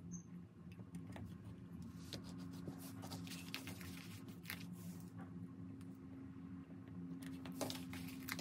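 Faint scattered clicks and light rustling of fingers handling a glass jar and pressing small cut-out paper images onto its lid, over a steady low hum.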